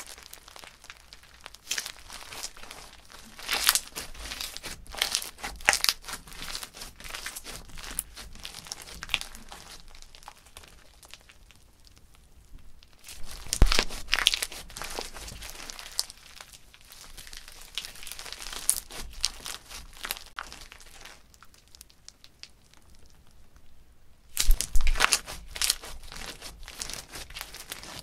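Crunchy slime packed with foam beads being squeezed, pressed and stretched by hand: a dense crackling and popping, with three louder bursts of crunching.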